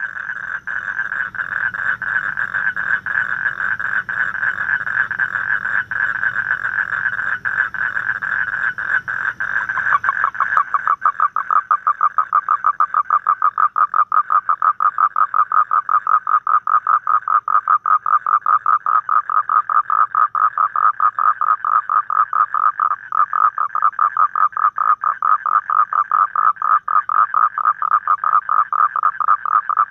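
Asian common toad calling: a long, continuous trill of rapid pulses. About ten seconds in, the trill turns louder, with the pulses more distinct.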